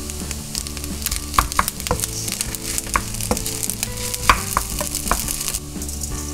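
Fried rice sizzling in an oiled frying pan as it is stir-fried, with a spatula clicking and scraping against the pan. The sizzle eases a little near the end.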